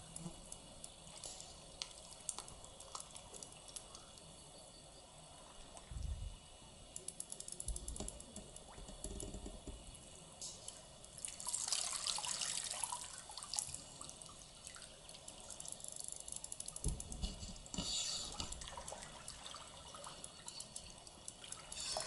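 River water splashing and lapping around legs wading through it, mostly faint with small drips, and louder swishing splashes in the middle of the clip and again later. A few dull low thumps come in between.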